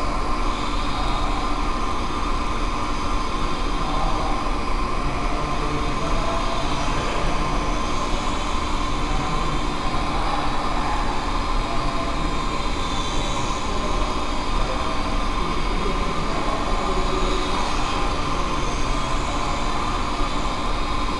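Micro quadcopter motors and propellers whining steadily, the pitch wavering up and down as the quad speeds up and slows, over a constant low hum.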